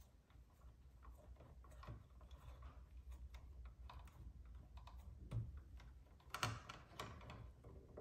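Faint small clicks and rustles of wires being twisted and wire nuts screwed tight by hand in a plastic electrical box, with a few louder clicks a little after five seconds in.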